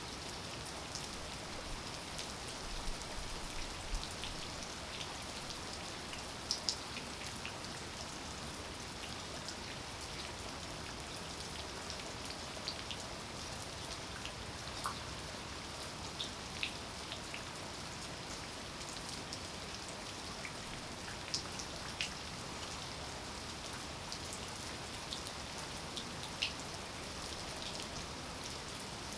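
Steady rain falling, with scattered louder individual drops ticking against a surface every second or two.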